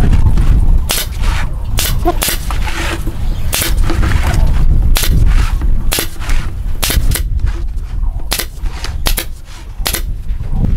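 A nail gun firing nails into the wooden rim of a tabletop: about fifteen sharp shots at irregular intervals, over a steady low rumble.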